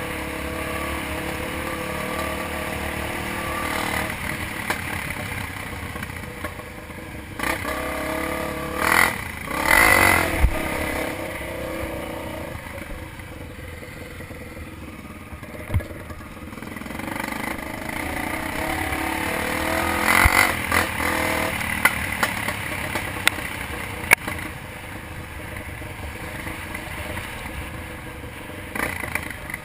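Trail dirt bike engine running under changing throttle, its pitch rising and falling, with clattering knocks from the bike over rough ground.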